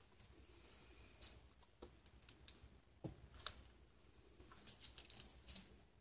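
Faint rustling and crinkling of a small plastic zip-top bag being handled and pressed flat by hand, with a few soft clicks in the middle.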